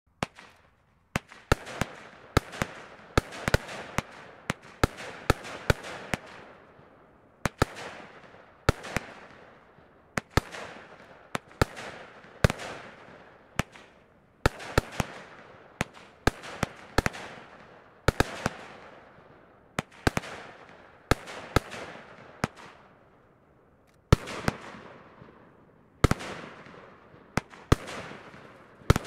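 Blackboxx Pitbull 43-shot firework battery firing: a fast run of sharp bangs from the shells launching and breaking, often two or three a second, each trailing off over about a second. The run eases for a moment near the end, then picks up again.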